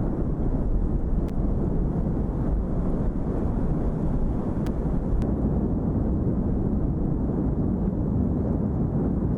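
Steady low rumbling roar of the Cumbre Vieja volcano erupting, with a few faint clicks.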